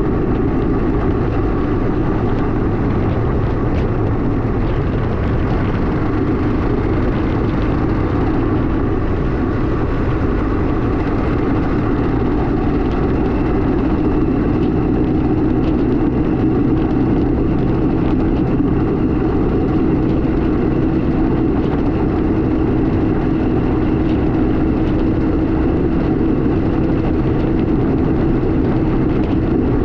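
Kawasaki KMX200's single-cylinder two-stroke engine running steadily as the bike is ridden, its note holding at an even pitch and growing slightly stronger in the second half.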